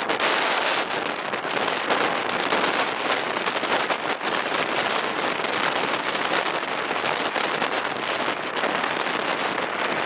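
Jet blast from a Boeing 737-800's CFM56 turbofans at take-off thrust: a loud, steady, crackling rush as the airliner accelerates away down the runway.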